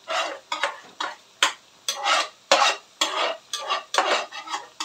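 Metal spatula scraping and knocking against a tilted frying pan, a dozen or so quick strokes about two to three a second with a few sharp clinks, scraping the last oil down so it drips out. Saba banana wedges sizzle faintly in the oil of another pan.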